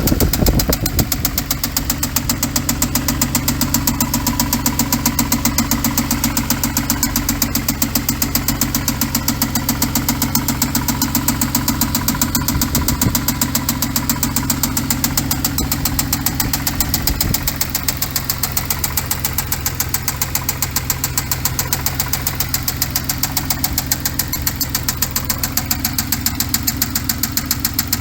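2014 Hyundai Genesis Coupe's 3.8-litre GDI V6 idling with a steady, rapid knock throughout, the sign of an internally failed engine.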